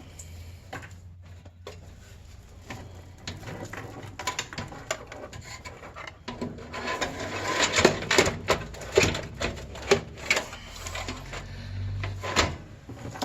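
Hand-handling noise of a computer power supply and its cables being fitted into a PC case: irregular clicks, knocks and rubbing of metal and plastic parts, busiest in the middle of the stretch.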